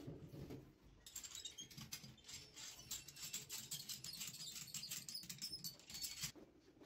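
Rapid, scratchy scraping of a hand tool against the rubber inside a bus tyre. It starts about a second in and stops abruptly near the end, after some dull handling bumps at the start.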